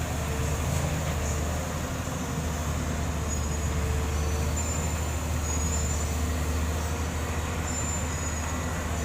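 Heavy diesel machinery running steadily, a low continuous engine drone.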